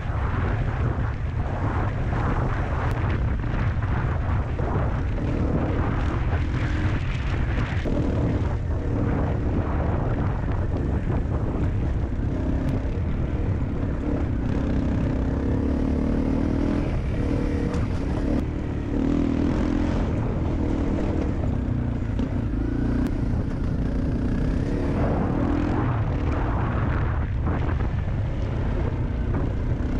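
Honda CRF250L's single-cylinder four-stroke engine running while the bike is ridden along a dirt track, its note fairly steady through the middle, with heavy wind rumble on the microphone.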